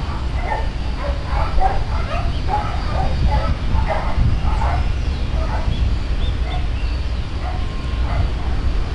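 A dog barking repeatedly in quick, short barks, thinning out after about five seconds, over a steady low rumble.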